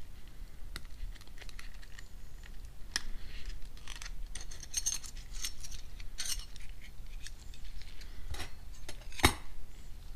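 Steel clutch plates and friction discs of a plated limited-slip differential clinking and scraping against each other and the case as they are picked out of the clutch pack, with one sharper metallic click near the end.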